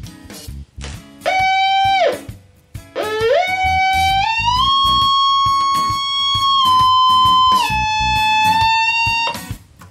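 Heterodyne whistle from a WWII German Torn.E.b. receiver being tuned on 160 m: a buzzy tone slides up about a second in and falls away, then rises again near three seconds, holds, and steps lower in pitch a few times as the tuning knob is turned.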